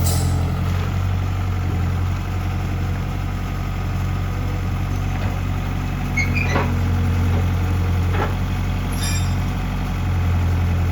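Bobcat S175 skid steer's four-cylinder diesel engine idling steadily, with a few brief clicks in the second half.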